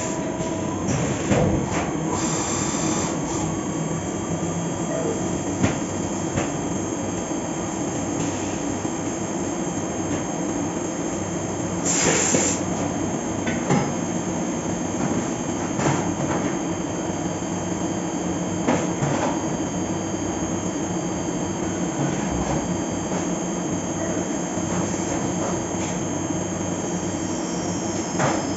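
Fagima Jazz M five-axis CNC milling machine running a cut: a steady mechanical hum with a few short hissing bursts, the strongest about twelve seconds in.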